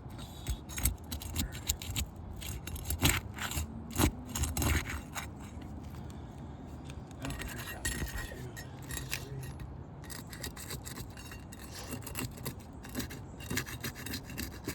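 Asphalt roof shingles being pried up, their sealed edges scraping and crackling as they break loose, with irregular sharp clicks and scrapes.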